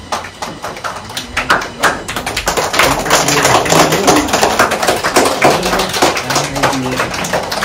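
Dense, rapid tapping and clicking, loudest through the middle, with voices underneath.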